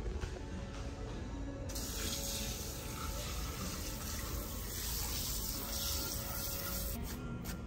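Water spraying from a pull-out faucet sprayer into a ceramic sink basin: a steady hiss that starts about two seconds in and stops shortly before the end.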